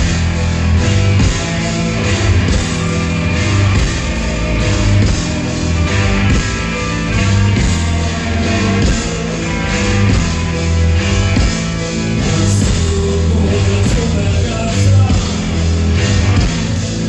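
Live rock band playing loud through a festival PA, with a heavy, steady bass line under drums and guitar.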